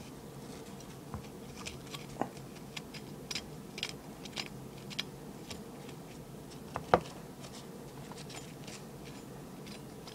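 Crisp crackling and small clicks of a fresh Brain Strain chili pepper pod being handled and pulled apart by hand close to the microphone, with one louder snap about seven seconds in.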